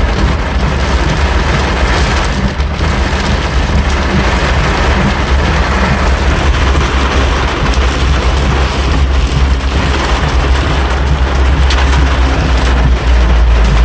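Torrential rain pelting a car's roof and windscreen, heard from inside the cabin as a loud, unbroken hiss over a steady deep rumble of the car on the road.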